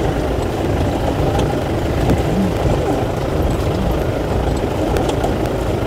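Car engine and tyre noise, a steady rumble as the car drives over a muddy, rough road, with a few faint knocks.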